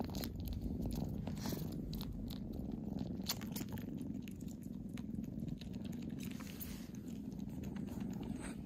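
Kittens purring steadily, a continuous low rumble, with scattered soft mouth clicks as the tabby kitten suckles and mouths at a finger.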